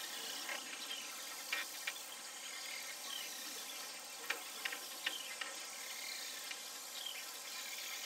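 Steady outdoor hiss with scattered short chirps and clicks, two of them brief falling whistles.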